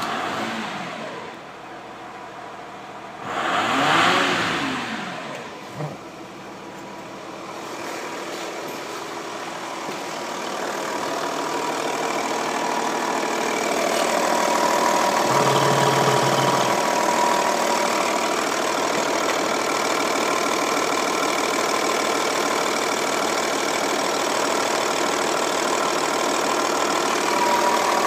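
Audi A6 C5 2.5 TDI V6 diesel engine running just after starting: revved once, rising and falling about four seconds in, then idling steadily. It is heard first from the cabin, then louder close up in the open engine bay, with a steady whine over the idle.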